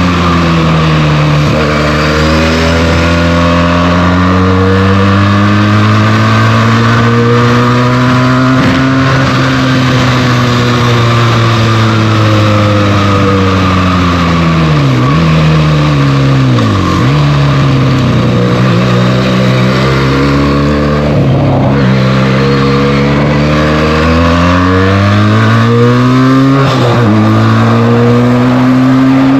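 Benelli TNT 300's parallel-twin engine running through its stock exhaust while riding. The engine pitch climbs slowly, dips sharply and recovers a few times around the middle, then rises again near the end.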